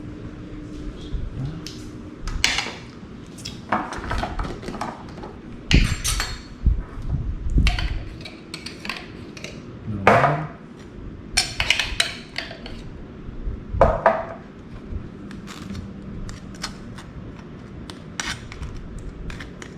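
Clatter of cooking utensils and dishes being handled: an irregular run of sharp clinks and knocks with a few scrapes, loudest about a third and two thirds of the way through.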